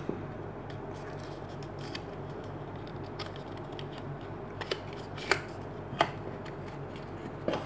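Small cardboard sleeve being handled and a plastic charging cradle with its coiled cable slid out of it, with soft rubbing and a few sharp clicks and taps about two-thirds of the way through.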